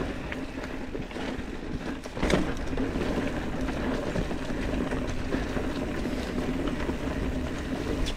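Mountain bike rolling fast down a dirt trail: a steady rumble of tyres and wind with scattered rattling clicks, and a heavier thump about two seconds in.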